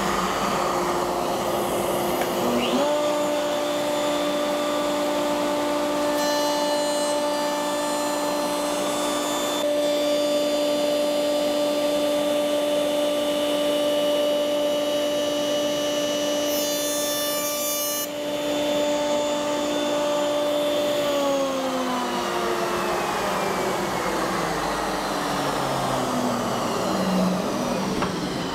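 Router in a router table with a plywood bit starts a few seconds in and runs with a steady high whine. A plywood side is fed along the fence, cutting a rabbet for the bookcase's back panel, and the bit's cutting hiss is heard through the middle of the run. About 21 seconds in the router is switched off and winds down, its pitch falling.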